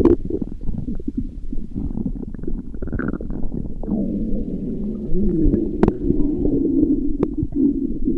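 Human stomach growling: continuous low gurgling and rumbling, turning into a longer, steadier growl about halfway through, with a couple of sharp clicks near the end.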